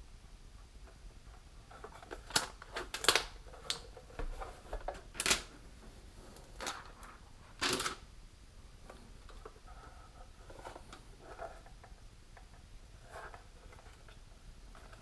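Handling noises: a scattering of sharp clicks and knocks with faint rustling, most of them in the first half, as a boxed PowerLab 8 battery charger is handled.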